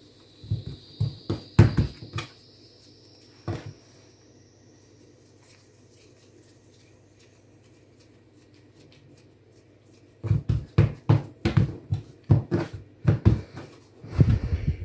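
Dull thumps of soft wheat-flour dough being patted and pressed flat by hand on a countertop. A cluster of thumps comes in the first couple of seconds and one more about three and a half seconds in; after a quiet spell, a quick run of thumps starts about ten seconds in and lasts into the last few seconds.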